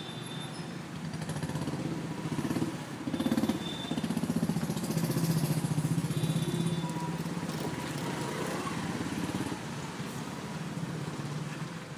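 City street traffic: a motor vehicle's engine running close by, growing louder for a few seconds in the middle and then easing off.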